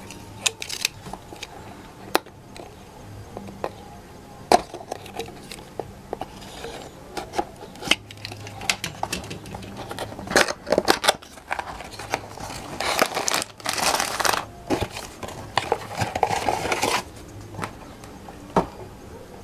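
Hands opening a small cardboard toy box and taking out its contents: scattered clicks and taps of the cardboard flaps, then several stretches of rustling and crinkling in the second half as the plastic bags of building pieces and the paper instructions are pulled out.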